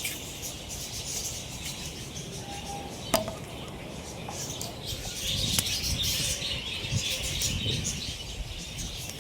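A flock of small birds chirping continuously, a dense overlapping chatter, with a single sharp click about three seconds in.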